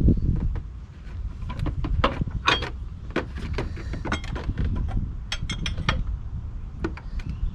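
Irregular clicks, taps and knocks of a hand tool and plastic parts being worked in a car's engine bay as the cooling fan and its cover are refitted. A low rumble sounds right at the start.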